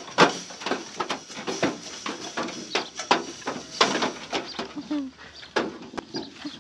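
Goats crowding at a pen fence as they are hand-fed old bread: irregular crackling and knocking, with a brief call about five seconds in.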